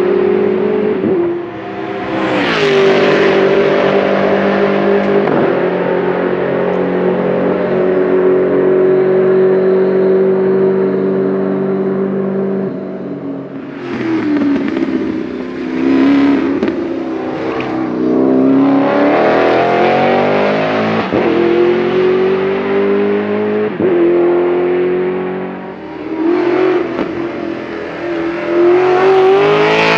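Racing Porsche Panamera S V8 running hard on track. The engine note holds a steady high pitch for a long stretch, then drops and rises again several times in sweeping climbs as it accelerates through the gears.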